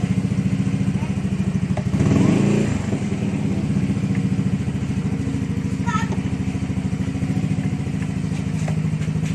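Yamaha Mio Gear scooter's single-cylinder engine idling with a steady throb through an aftermarket Apido stainless exhaust pipe, with a brief swell about two seconds in.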